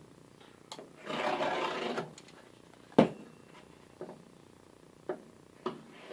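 A heavy knife drawn through a thick rubber drawer-liner mat, a rasping cut of about a second, followed by a sharp knock about three seconds in and a few lighter taps as the mat and tool are handled.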